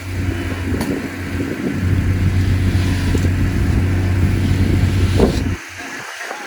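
A heavy engine running steadily with a deep hum, which drops away abruptly about five and a half seconds in.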